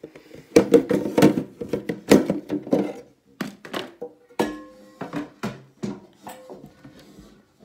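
Hands handling objects in a plastic enclosure close to the microphone: irregular clatter, taps and knocks, a few of them ringing briefly.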